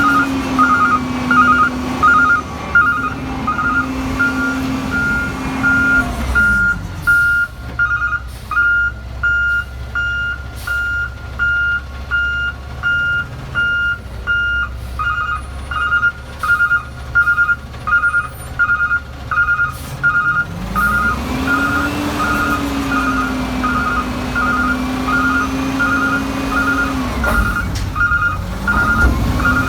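Vehicle reversing alarm beeping steadily about once a second, with a heavy engine running underneath whose pitch drops about six seconds in and climbs again after about twenty seconds.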